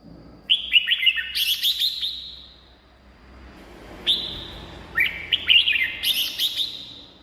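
Red-whiskered bulbul singing: two short phrases, each a quick run of bright notes, the second starting about three and a half seconds after the first.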